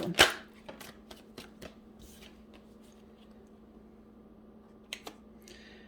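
Tarot cards being handled and laid down: a sharp snap about a quarter second in, then a few faint taps and slides, and two quick clicks near the end.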